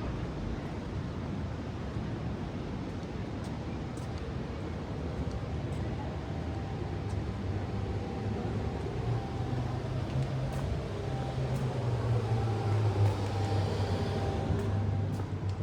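Outdoor town ambience with a motor engine running, its low hum growing louder in the second half.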